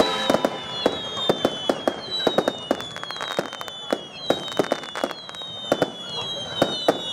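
A fireworks display: a rapid, irregular volley of sharp bangs, with a string of overlapping high whistles, each sliding slightly down in pitch, from whistling fireworks.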